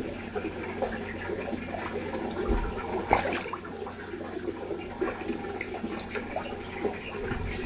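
Koi crowding at the water surface and mouthing at a hand, with many small slurping, gulping pops and splashes. A louder splash comes about three seconds in.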